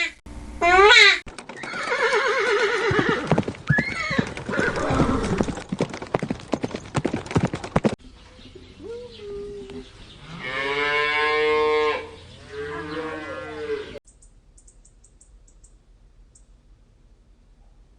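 A pitched cry that ends about a second in, then several seconds of noisy horse sounds with many clicks, followed by wavering horse whinnies about ten to thirteen seconds in; the last few seconds are quiet.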